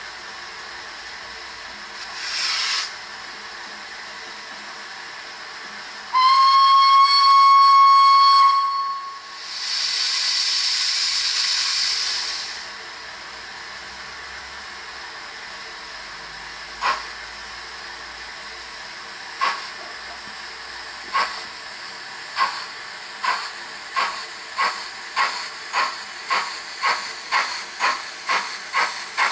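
Sound-fitted Dapol model of the 0-4-0 saddle tank steam locomotive Invincible playing its steam sounds through the model's small speaker. Over a steady background hiss comes a short burst of steam about two seconds in, then one long whistle, then a longer release of steam. Exhaust chuffs then start slowly and quicken steadily as the locomotive pulls away.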